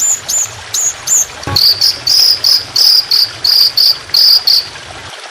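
Birdsong training (masteran) recording: a few short high chirps that drop in pitch, then a fast run of repeated high notes, about four a second, lasting some three seconds. A single knock sounds at the start of that run.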